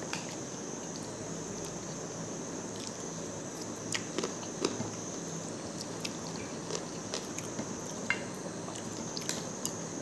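Eating rice and curry by hand: wet squelching of fingers mixing the food on the plate and chewing, with scattered short clicks and smacks over a steady hiss.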